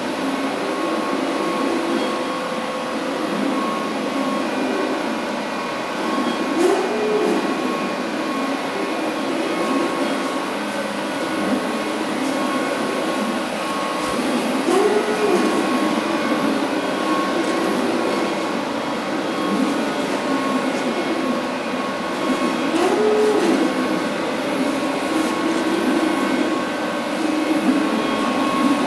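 575 W moving-head spot light running steadily, its cooling fans and motors making a continuous mechanical whir with a faint steady whine. A hum rises and falls again in pitch about every eight seconds as the head moves.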